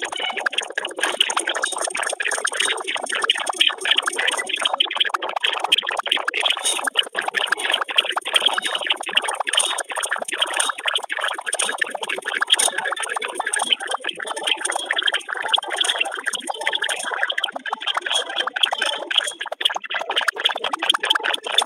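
Dense, continuous crackling noise with no clear tone or voice in it.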